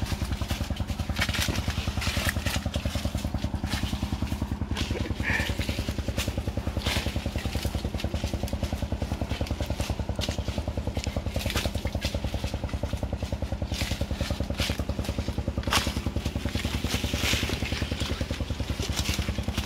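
A small engine running steadily at an even, fast putter throughout. Scattered sharp clicks and knocks sound over it.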